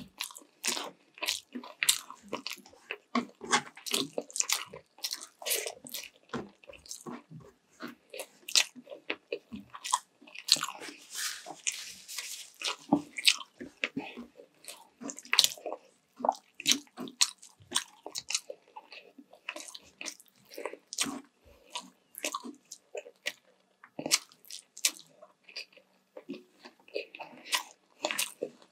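A person eating sweet and sour chicken with rice close to the microphone: irregular chewing and biting, with many sharp mouth clicks.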